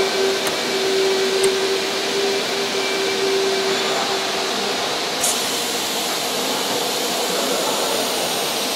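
ATC CNC router with HSD spindle running: a steady rushing machine noise, with a steady whine that fades out about four and a half seconds in and a brief high hiss about five seconds in.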